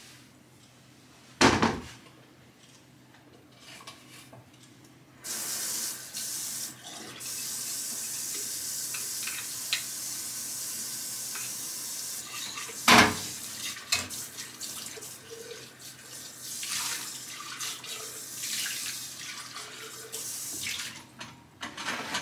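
Kitchen tap running into a sink in a steady rush for about eight seconds, ending with a loud knock. There is a sharp knock a second and a half in, and shorter, irregular bursts of running water and clatter in the later part.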